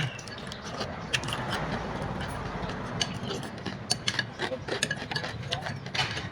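Eating utensils clicking against a noodle bowl, a few light clicks a second at irregular intervals, over a steady low rumble of roadside traffic.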